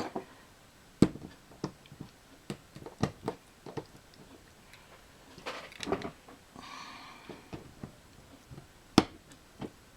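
Weights being set down one after another on a workbench to hold a freshly glued model-railway turnout: a string of sharp knocks and clicks, the loudest about a second in and near the end, with some scraping and handling noise in the middle.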